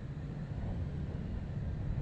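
Steady low rumble of a car on the move: road and wind noise.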